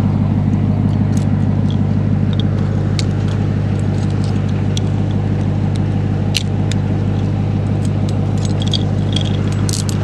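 Steady low hum of an idling vehicle engine, with scattered small metallic clicks and jingles from handcuffs being unlocked and taken off.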